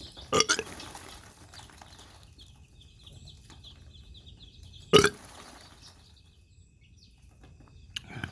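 A man burps loudly, a double burp near the start and a single one about five seconds in, after drinking cider. Between the burps, two-day-old chicks peep in quick, high, short notes.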